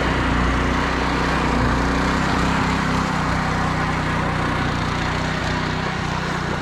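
Small petrol engine of a homemade motorised board running steadily at speed.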